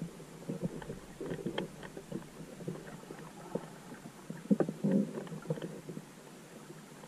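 Irregular, muffled knocks and clicks of a GoPro 5 handled on a pole underwater, heard through the submerged camera, with the loudest bunch of knocks about four and a half to five seconds in.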